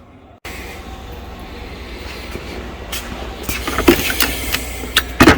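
Sharp knocks and clatter over a steady low rumble that slowly grows louder. The loudest knocks come about four and five seconds in.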